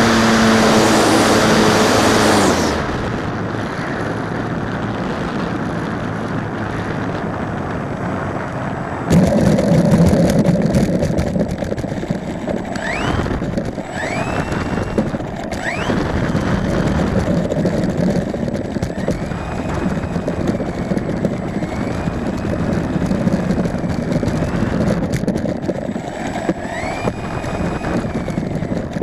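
YAK-54 3D aerobatic RC model plane's motor running loud at high throttle, then throttled back about two and a half seconds in. Later come several short rising whines as the motor spools up again, under heavy wind noise on the microphone.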